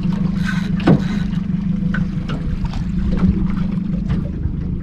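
Boat's outboard motor running with a steady low drone, with wind on the microphone. A short falling sound about a second in is the loudest moment.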